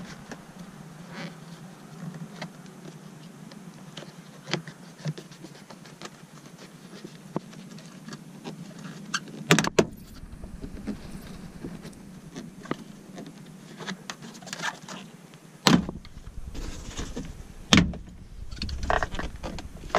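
Plastic interior trim panels of a 2002 Subaru Outback being handled and pulled off, with many small clicks and snaps as the trim clips pop loose. The loudest snaps come about ten, sixteen and eighteen seconds in.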